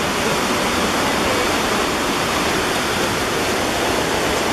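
Buttermilk Falls' cascade of white water rushing over rock, a loud, steady, unbroken wash of water noise.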